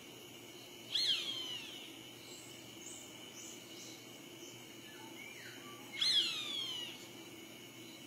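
Roadside hawk calling twice, about five seconds apart, each call a harsh scream falling in pitch and lasting under a second. A steady high insect drone runs underneath.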